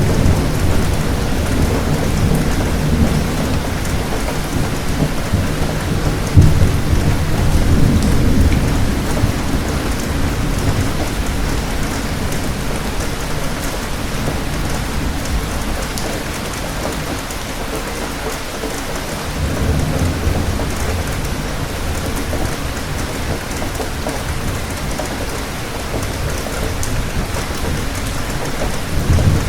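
Thunderstorm: steady rain hissing, with thunder rumbling low underneath. A louder clap comes about six seconds in, and the rumble swells again around twenty seconds.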